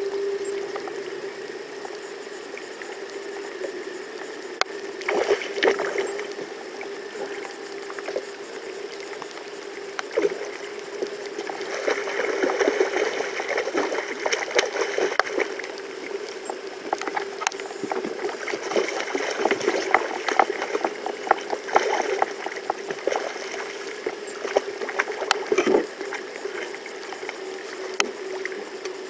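Water splashing as a hooked catfish thrashes at the surface beside the boat while it is reeled in and netted. The splashes come in many sharp strokes, busiest through the middle and second half. A steady hum runs underneath.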